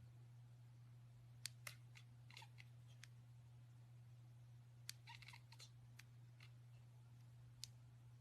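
Near silence: a faint steady low hum with scattered faint clicks and ticks, some in quick little clusters.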